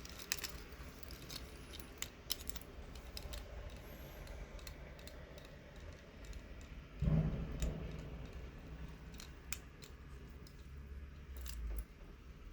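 Light clicks and metallic clinks of a wristwatch and its metal bracelet being handled, with one dull thump about seven seconds in.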